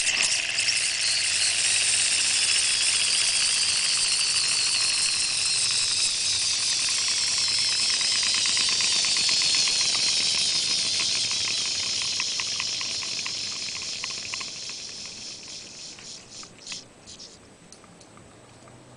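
A Vex robotics motor and its gear train spin a stack of heavy wheels with a high whine. The whine slowly drops in pitch and fades as the load spins down, breaking into a slowing run of gear clicks near the end.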